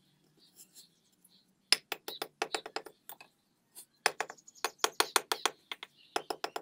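A hammer tapping freshly laid bricks down into their mortar bed to level them. The taps come in three quick runs of about seven sharp knocks a second, each run lasting about a second.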